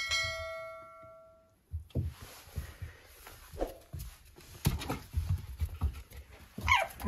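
A bell-like chime rings at the start and fades over about a second and a half, an added subscribe-button sound effect. Then a red fox and a puppy play-fight, with paws scuffling and bumping on a hard floor, a short squeal a few seconds in and a higher squeal near the end.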